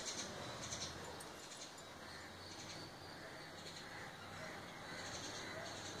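Faint, high-pitched bird chirps in short bursts, a few near the start and more near the end, over a soft steady hiss.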